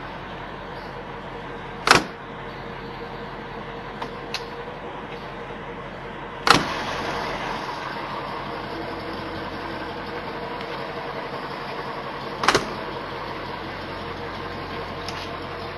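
Doors of a 1934 Packard Eight sedan being shut: three solid slams about five seconds apart, with a few light clicks of handles and latches between them, over a steady hum.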